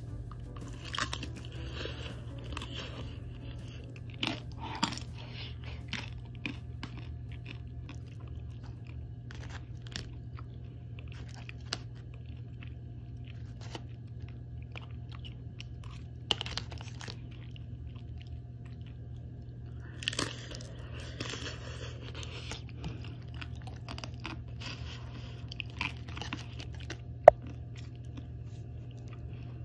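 Someone chewing crisp air-fried dumplings, with irregular crunches over a steady low hum. Near the end, a single sharp ringing tap of metal chopsticks against the steel sauce cup.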